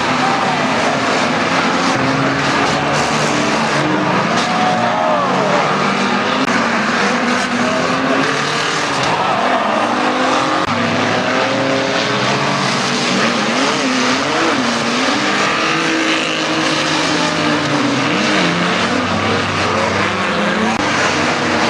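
Engines of a pack of Unlimited Banger stock cars racing around an oval track, several engine notes overlapping and rising and falling as they rev and pass, with tyre noise underneath.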